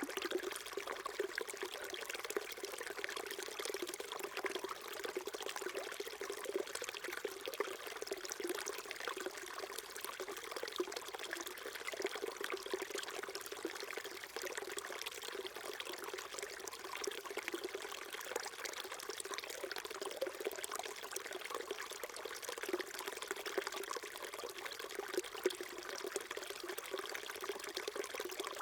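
Small stream flowing steadily, water trickling and babbling over rocks.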